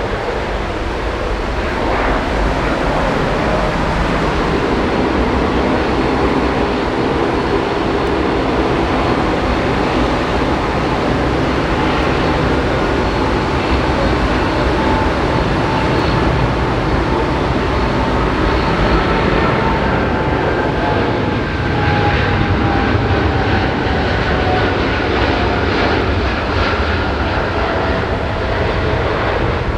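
Jet airliner engines running, a loud steady rush with a faint engine whine that slowly falls in pitch in the second half.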